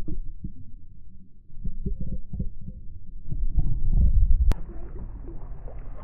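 Muffled low rumbling and irregular low thumps of water movement picked up by an action camera held under the water. About four and a half seconds in, a sharp click and the sound switches to open-air sound of choppy water and wind around the kayak.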